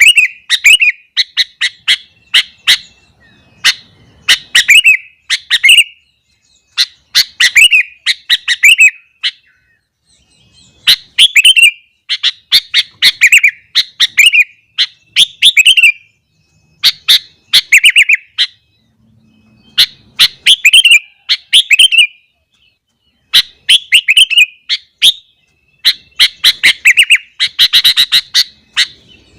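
Sooty-headed bulbul (kutilang) singing loudly and persistently: short bubbling phrases of sharp chirps and quick falling whistles, repeated in clusters with brief pauses.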